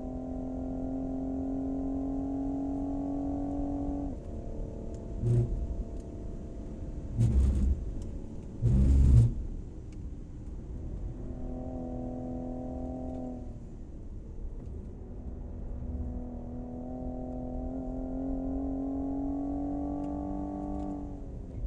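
2020 Cadillac CT5-V's twin-turbo 3.0-litre V6 pulling hard on a race lap, its pitch climbing slowly through each gear and dropping sharply at the gear changes, three times. A few loud thumps come in the middle.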